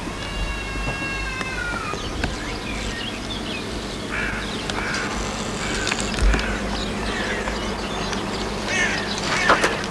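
Animal calls: one drawn-out pitched call about half a second in that drops in pitch as it ends, then a string of short calls, with a louder cluster near the end.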